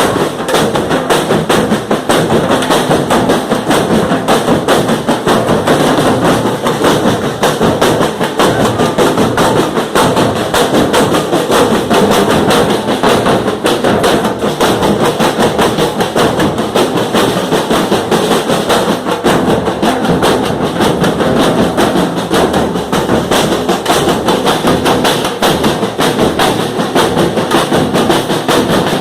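Loud music carried by drums and percussion, beating fast and without a break.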